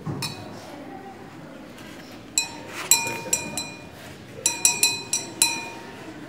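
A glass pipette clinking against a glass beaker while sodium hydroxide solution is drawn up with a pipette filler. There are two runs of short, ringing glass clinks, the first about two and a half seconds in and the second about a second later.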